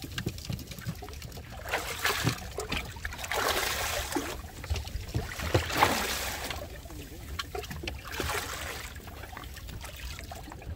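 Water sloshing and lapping at the surface beside a small boat, swelling and fading every couple of seconds.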